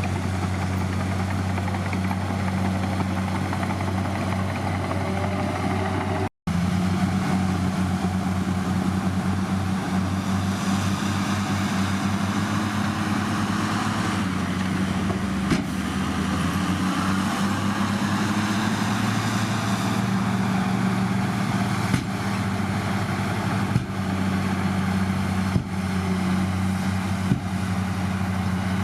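A heavy earthmoving machine's diesel engine running steadily with a deep drone. It cuts out for a split second about six seconds in, with a few light knocks later on.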